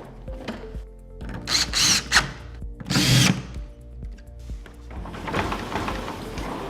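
Cordless drill running in short bursts: two loud ones a couple of seconds in and around three seconds, then a softer, longer run near the end, over background music.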